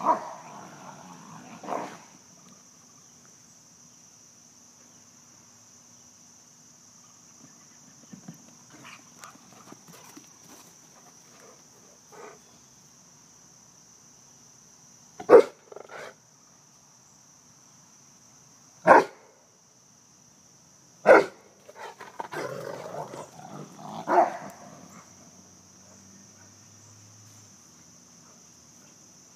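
Rottweilers barking: a handful of short, loud single barks spaced several seconds apart, over a steady high drone of insects.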